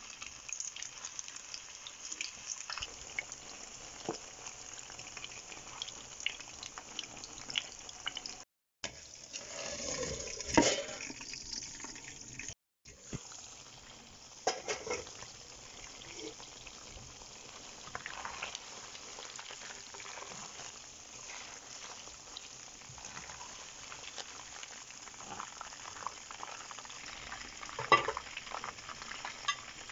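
Marinated chicken pieces frying in hot oil in a wok: a steady sizzle full of small crackles and pops. Near the end a metal slotted spoon stirs and turns the pieces, with a sharp knock against the pan. The sound drops out briefly twice.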